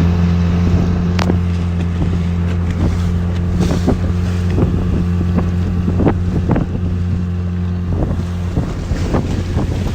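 Outboard motor of a small aluminium tinnie running at a steady speed, with short irregular knocks and slaps on the hull and wind on the microphone.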